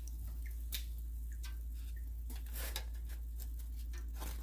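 Metal kitchen tongs clicking and tapping against a wire deep-fryer basket several times at irregular intervals as a fried donut is picked out, over a steady low hum.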